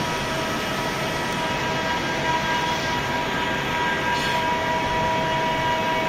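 Steady drone of heat-treatment workshop machinery: an even roar with a constant hum of several steady tones, its level unchanging throughout.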